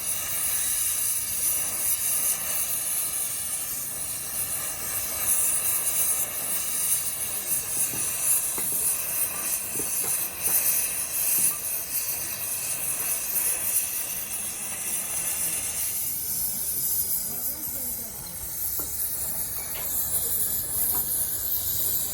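A steady, loud hiss, mostly high-pitched, that grows thinner about sixteen seconds in.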